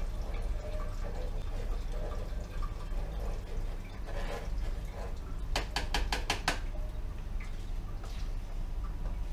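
Red wine trickling and dripping through a sieve and funnel into a glass demijohn, with a spoon stirring in the sieve to keep it from plugging with grape solids. A little past the middle comes a quick run of about eight light taps, the spoon against the sieve.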